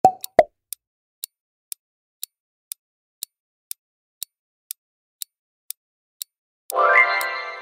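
Quiz countdown-timer sound effect: clock ticks about two per second, opened by two short pops. Near the end the ticking stops and a ringing tone with many overtones rises and holds for about a second, signalling that time is up.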